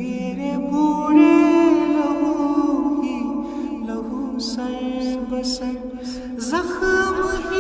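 Kashmiri nasheed sung by a man's voice in long, held, chant-like notes over layered vocal backing. The pitch steps up to a new sustained note about six and a half seconds in.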